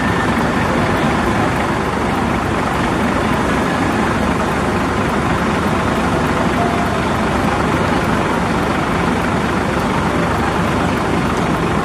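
Large diesel bus engines idling, a steady noise without change.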